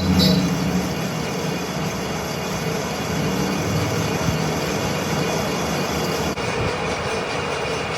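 Manual metal lathe running as it turns metal, a steady mechanical noise with a low hum. The sound shifts abruptly about six seconds in.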